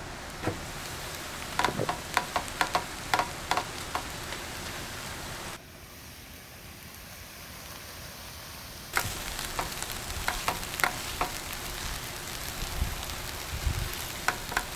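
Food frying in a pan with a steady sizzle, broken by sharp clicks of a utensil stirring against the pan. The sound drops to a quieter sizzle for a few seconds in the middle.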